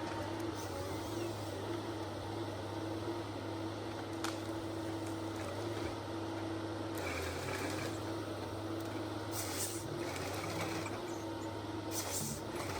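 Logset 6HP GTE forest harvester's six-cylinder diesel engine running with a steady drone, with brief hissing bursts about nine and a half and twelve seconds in.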